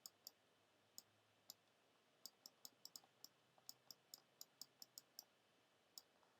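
Faint, small, sharp clicks, about twenty of them at irregular spacing and bunched in the middle, with near silence between.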